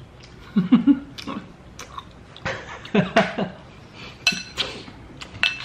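A metal spoon clinking against a bowl while someone eats, with a few sharp ringing clinks in the last second and a half. About a second in and again around three seconds in come short low mouth or throat sounds from the eater.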